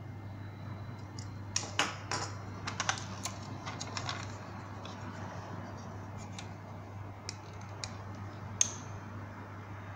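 Light clicks and taps of a hard plastic toy vehicle (a ThunderCats ThunderRacer) and a metal tape measure being handled together: a quick run of clicks in the first half, then a few single clicks, the sharpest near the end, over a steady low hum.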